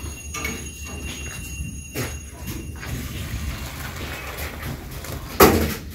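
Metal pot of boiled lentils lifted off a gas burner and poured out into a steel bowl: liquid pouring with light metallic clinks, and one loud metal clank near the end.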